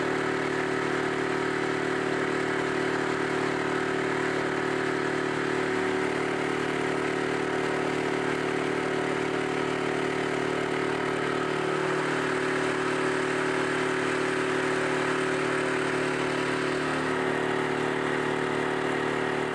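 Boat engine running steadily, an even hum with a slight shift in pitch about twelve seconds in, fading out at the end.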